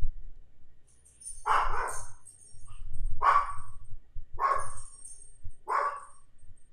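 A dog barking four times, roughly a second and a half apart.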